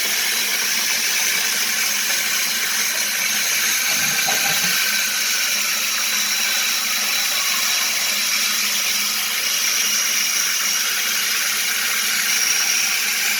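Niagara flapperless toilet running after a flush: a steady rush and hiss of water as the tank refills, with a thin high tone joining in after about nine seconds.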